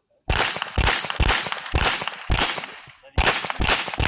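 Rapid gunfire on a shooting-match stage: about eight shots roughly half a second apart, with a short pause near three seconds in before the next string, each crack trailing off in a brief echo.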